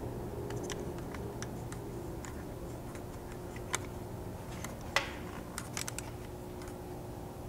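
Small, irregular metal clicks and ticks of the factory nuts being started and threaded by hand onto the small 6 mm studs of a Ford Bronco's front roof-rack mount, with two sharper clicks about three and a half and five seconds in. A steady low hum runs underneath.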